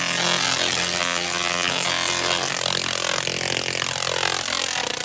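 Double-resonant solid-state Tesla coil (DRSSTC) sparking in burst mode, making a loud, harsh buzzing drone at a low, steady pitch.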